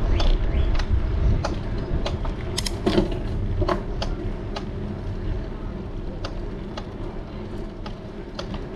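Bicycle being ridden, creaking with a sharp click about twice a second, over a steady low rumble of tyres and wind.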